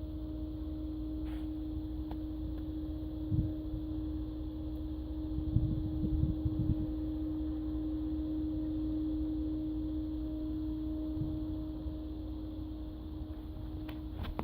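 A distant siren sounding one steady, unchanging low tone, over low wind rumble with a few buffets on the microphone. The siren is going off without cause, which 911 believes is a malfunction.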